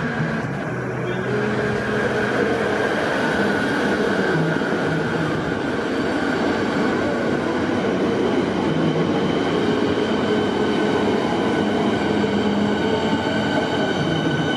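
Electric suburban train moving along the station platform: steady running and wheel noise, with held tones from its electric motors.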